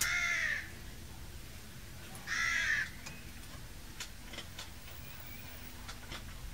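A bird calling twice, each call about half a second long, about two seconds apart. A few faint clicks follow as brake pads are pressed into the caliper bracket.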